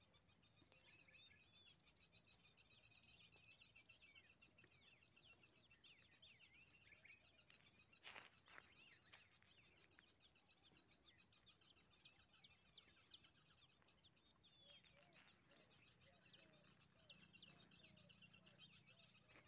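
Near silence with faint birds chirping: many short, high chirps and calls throughout, and a single soft knock about eight seconds in.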